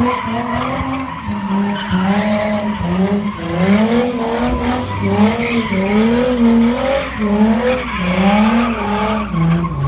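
Car drifting in circles, its spinning tyres giving off a continuous squeal. Under the squeal the engine is held high, its pitch swinging up and down about once a second.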